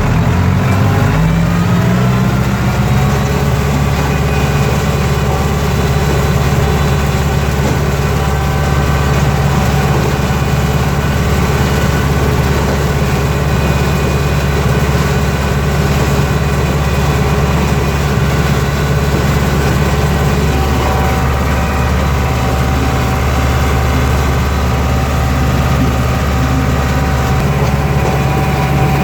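Fiat 640 DT tractor's four-cylinder diesel engine working under load, driving a SIP Tornado 40 forage harvester through corn. The revs climb over the first couple of seconds and then hold steady over a constant mechanical din.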